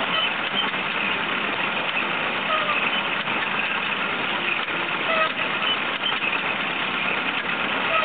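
Stationary baler working, a steady, even mechanical noise with no clear rhythm.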